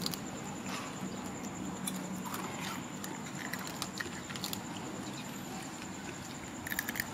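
A baby macaque chewing a snack: scattered small clicks and crunches over steady background noise.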